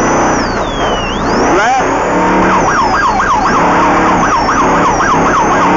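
Off-road race truck running hard with its yelp siren sounding: one slow sweep, then a fast warble about three times a second from about two seconds in. The siren warns the slower vehicle ahead that the truck wants to pass.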